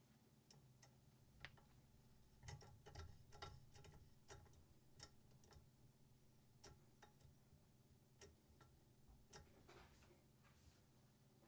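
Faint, irregular clicks and light taps of hard objects being handled, a few clustered together about two to four seconds in, then scattered singly.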